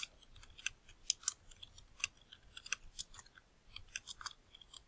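Computer keyboard typing: a run of light, quick key clicks at an uneven pace as a line of text is typed.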